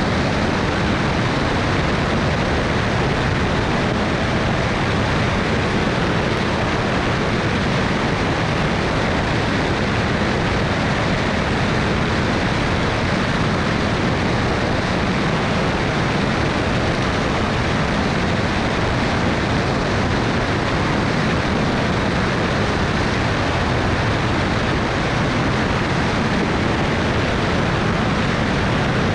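Cessna 210 Turbo Centurion's turbocharged six-cylinder engine and propeller running steadily in flight, heard as a constant, even rush mixed with airflow noise.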